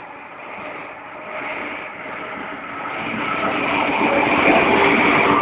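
DB Class 628 diesel multiple unit approaching and passing close by, its diesel engine running under power and growing steadily louder to a peak near the end.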